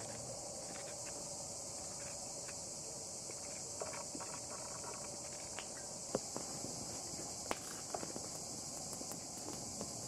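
Chef's knife shredding a red cabbage, with crisp slicing cuts and sharper clicks that come more often in the second half, the loudest about six and seven and a half seconds in. Behind it is a steady high chirring of insects.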